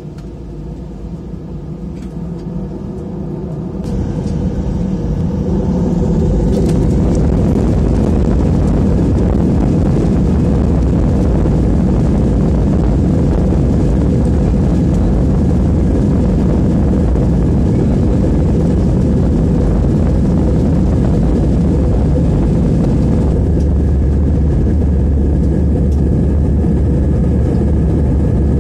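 Jet airliner engines spooling up to takeoff thrust, heard from inside the cabin. The sound grows steadily louder over the first several seconds, then holds as a loud, steady rumble with a constant whine through the takeoff run and climb-out.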